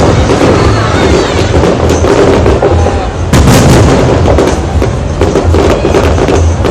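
Fireworks bursting, the loudest blast about three and a half seconds in, over a continuous din of voices and music.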